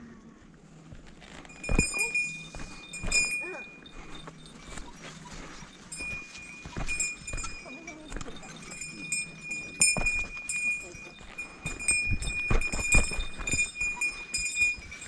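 A small bear bell on a hiker jingling with each step. It rings for a moment about two seconds in and again from about six seconds in. Under it are footfalls and scuffs on a steep dirt and leaf-litter trail, loudest near the end.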